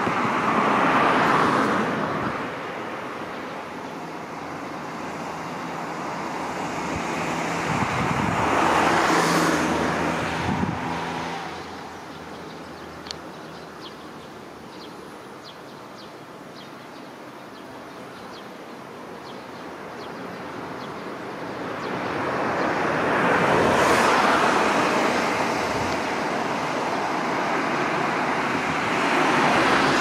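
Road traffic: several vehicles pass one after another, each one swelling up and fading away over a few seconds, with a quieter spell in the middle.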